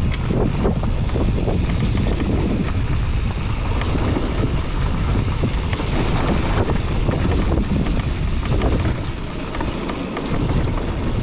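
Wind buffeting an action camera's microphone while riding a Bajaj Pulsar NS200 motorcycle along a rough dirt road, with the bike running steadily under the wind noise.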